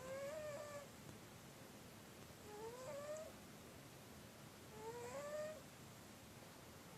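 Domestic cat snoring in its sleep: a short, pitched snore on each breath that rises in tone and breaks off, three of them about two and a half seconds apart.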